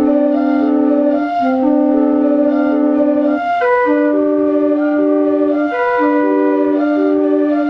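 Homemade PVC pipe organ playing a piece in several parts: low notes held a second or two at a time under shorter upper notes that move about.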